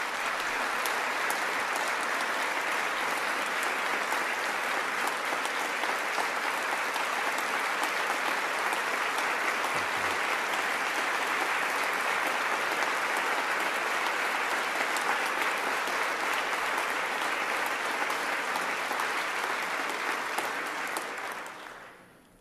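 A large audience applauding steadily, dense clapping that holds for about twenty seconds and then dies away near the end.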